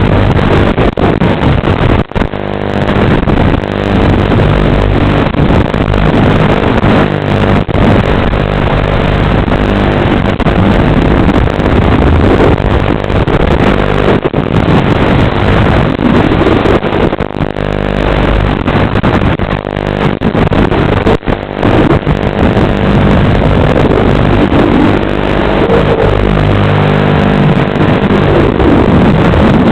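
A 6-inch FPV quadcopter's brushless motors and propellers whining loudly, the pitch rising and falling as the throttle changes. There are brief dips about 2, 14 and 21 seconds in, where the throttle is chopped.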